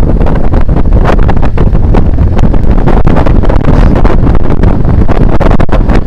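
Loud, constant wind buffeting on the microphone from the airstream of a fast road-bike descent, a dense low rumble with rapid gusty crackles.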